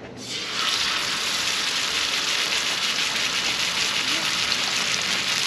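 Raw steak sizzling in hot oil on a Skottle plow-disc grill. The sizzle swells up about half a second in as the steak is laid down, then holds as a steady hiss.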